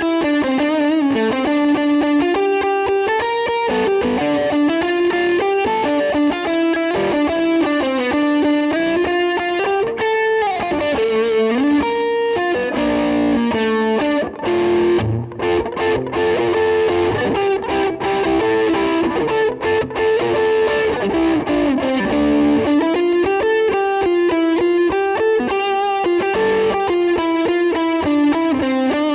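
Electric guitar, a Gibson Les Paul Custom replica after a setup and new control electronics, playing a flowing single-note melody, with a downward slide about ten seconds in.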